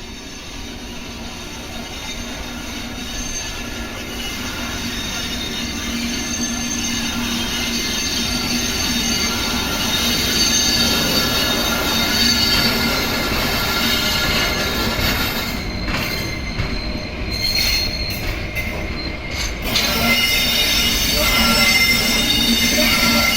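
Locomotives EF81 97 and DD51 895 rolling slowly on rails, their wheels squealing in several steady high tones over a low rumble. The sound grows louder as they approach, dips and wavers briefly about two-thirds of the way in, then comes back louder.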